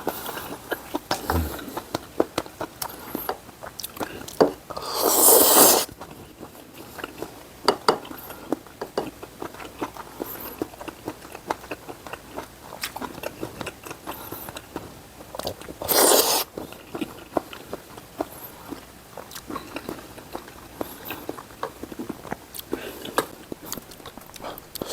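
Close-miked eating of jjamppong noodles: steady chewing with many small moist clicks, and two loud slurps, a long one about five seconds in and a short one near sixteen seconds.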